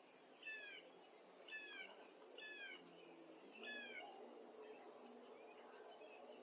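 A bird giving four short, downslurred mewing calls, about a second apart, over a faint background.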